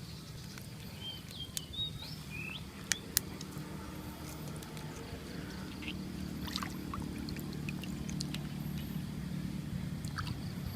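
Steady low drone of a small motor, growing a little louder about halfway through, with a few short chirps and scattered clicks over it.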